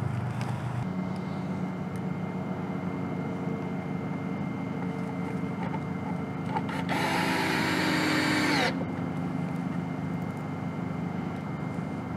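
A cordless drill runs once for under two seconds, about two-thirds of the way through, over a steady low hum.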